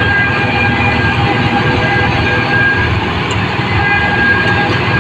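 New Holland rice combine harvester running steadily: a loud, continuous machine drone with a high whine that comes and goes.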